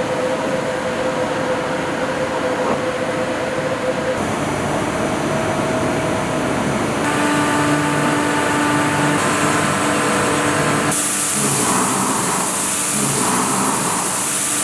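Indexable-insert milling cutter (Tungaloy DoTriple-Mill) cutting C55 carbon steel on a CNC machine: a steady cutting roar with ringing tones. The tone changes abruptly several times, and in the last few seconds the noise swells about once a second as the workpiece turns against the cutter.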